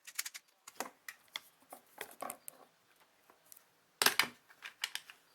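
Plastic 3x3 speedcube being turned by hand: a run of quick, irregular clicks and clacks, with a louder cluster of clacks about four seconds in.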